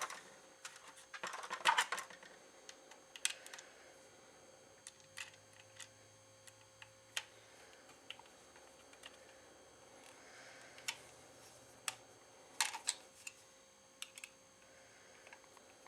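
Light scattered clicks and taps of the plastic parts and shell of a Nerf Rival Apollo blaster being handled and fitted together during reassembly, with small clusters of clicks near the start and again near the end.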